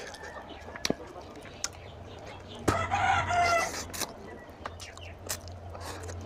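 A chicken calls once, a pitched cry a little over a second long, about three seconds in. Around it come scattered wet clicks and smacks of eating by hand.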